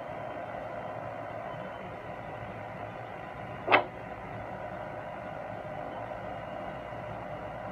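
Steady hiss with a single sharp bang about three and a half seconds in.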